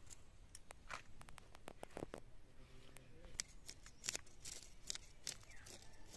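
Tilapia being scaled against the curved blade of a bonti: a faint, irregular string of short scratchy rasps as the scales scrape off.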